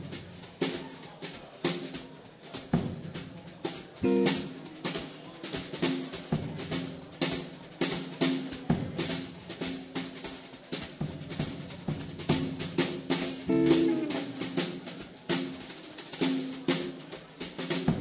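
Small swing jazz band playing an instrumental passage, the drum kit prominent with frequent snare and cymbal hits under held melody notes.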